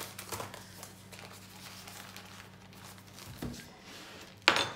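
Baking parchment rustling and crinkling as a roll of puff pastry is pulled from its package and unrolled on a wooden counter, with a brief, louder crackle of the paper near the end.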